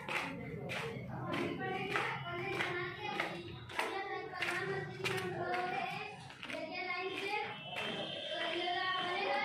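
Singing in a young, child-like voice to a steady beat of sharp strokes about twice a second.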